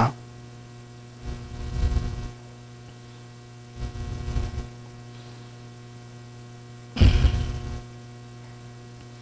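Steady electrical hum from an old recording setup, a buzz with many evenly spaced overtones, with three brief low rustles at about one, four and seven seconds in.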